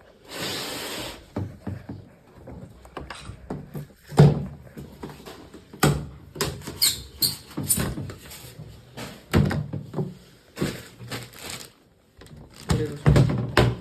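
Irregular knocks, thumps and squeaks of things being handled, with the loudest thump about four seconds in.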